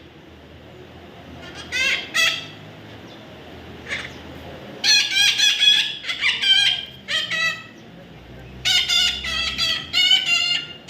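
Parrot calling in repeated squawks with a wavering pitch: two short calls about two seconds in, then a run of calls from about five seconds to seven and a half, and another run from about nine seconds on.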